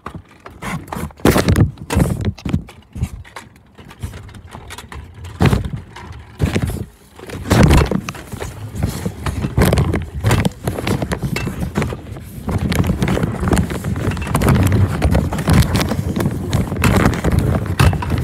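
Fabric of a bag rubbing and bumping against a phone's microphone as the bag is carried, with irregular knocks and scrapes. The sound is muffled and close; it is sparse at first and becomes a dense, continuous rustle from about seven seconds in.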